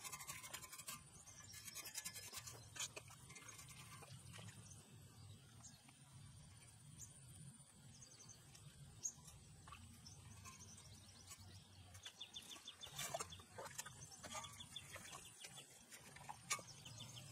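Faint scraping and rubbing of wet mud being pulled by hand from a walk-behind tiller's rotary tines, with scattered small clicks and a denser run of scrapes near the end.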